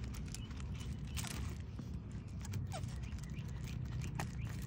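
Tortoises fighting: a few sharp knocks and scrapes of shell against shell and gravel, scattered irregularly over a low steady background noise.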